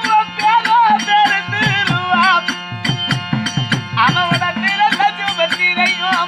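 Therukoothu folk-drama music: a wavering melody over a steady drone, with a quick even beat of sharp clicks and runs of low drum strokes in the middle.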